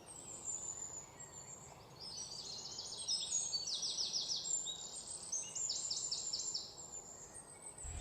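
Birds chirping: runs of short, high, quickly repeated notes, several overlapping, over faint background hiss, thickest from about two seconds in.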